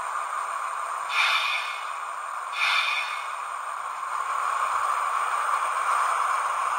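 Model train running on the layout: a steady whirring hiss of motor and wheels on the track, growing a little louder about four seconds in. Two short, higher-pitched blasts come about a second and a half apart.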